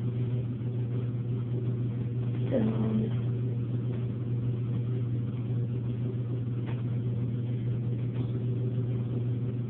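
A steady low hum with a few faint steady tones above it, and a short faint falling sound about two and a half seconds in.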